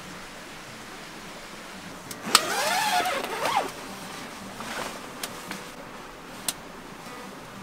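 Tent zipper pulled along the fabric wall: a sharp click, then one rasp of about a second and a half whose pitch rises and falls. A shorter, fainter rasp follows, then a few light clicks.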